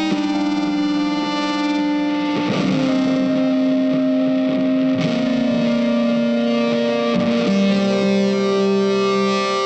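Background music: sustained guitar chords with effects and light distortion, the chord changing about every two and a half seconds.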